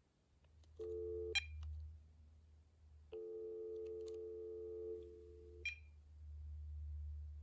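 Cordless phone handset playing the steady dial tone of the line through its speaker. The tone cuts out twice, each time with a sharp button click, and then comes back, as the handset's channel change button is pressed.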